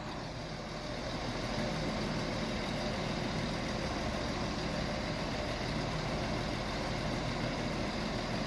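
Class 168 diesel multiple unit standing at the platform with its doors shut, its diesel engines idling with a steady hum that grows slightly louder about a second and a half in.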